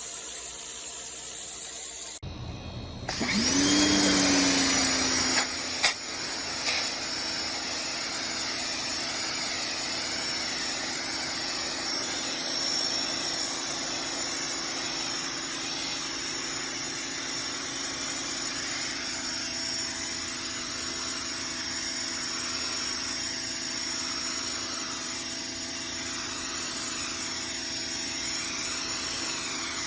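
Pressure washer running and spraying: a steady hiss over a machine hum. About two seconds in, the sound briefly drops, then surges back with a gliding whine, followed by a couple of sharp clicks before it settles steady again.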